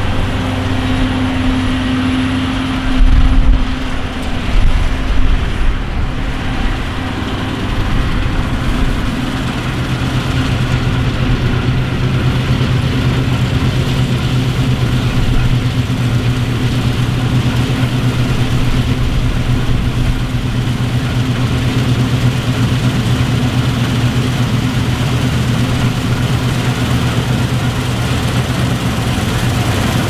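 Claas Lexion combine harvester running under load as it cuts barley: a steady drone of engine and machinery, with a deeper hum that grows stronger from about ten seconds in as the machine comes closer. A few low thumps a few seconds in.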